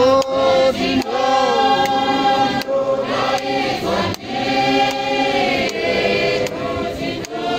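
A large congregation singing a hymn together, many voices holding long notes in phrases that break briefly about every second and a half.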